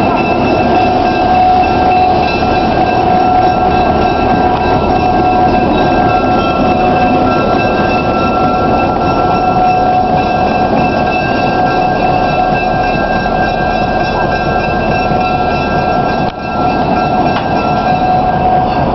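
Arkansas Midland Railroad locomotive 707 and its freight cars in motion: a loud, steady rumbling rolling noise with a constant high whine over it, dipping briefly about sixteen seconds in.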